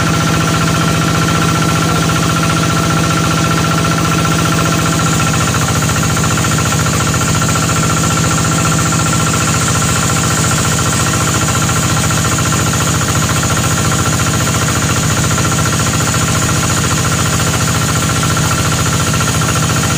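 Vertical band sawmill running steadily with a constant machine hum, its blade sawing lengthwise through a squared log. A higher hiss joins about five seconds in and holds.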